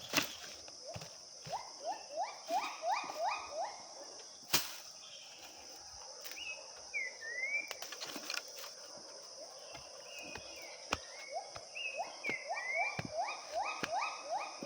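Forest ambience with a steady high insect drone. A bird calls in two runs of quick rising whistled notes, with a few higher chirps between them. Scattered sharp clicks sound, the loudest about four and a half seconds in.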